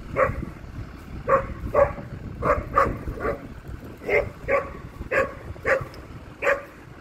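Dog barking repeatedly, about eleven short barks at uneven spacing.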